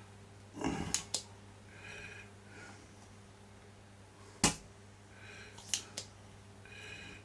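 Spring-loaded solder sucker (desoldering pump) in use: a clatter of clicks about a second in as the plunger is pushed down and latched, then one loud sharp snap about four and a half seconds in as it fires to suck solder from a hole, with two lighter clicks after it.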